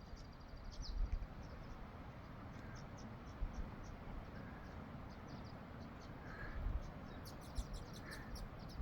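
Quiet outdoor ambience: a low wind rumble on the microphone, with scattered faint, short high chirps and a run of small ticks near the end.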